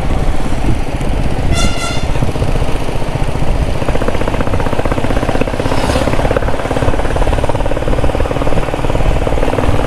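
Royal Enfield Bullet 350's single-cylinder engine running steadily as the motorcycle rides along the road. A short vehicle horn toot sounds about a second and a half in.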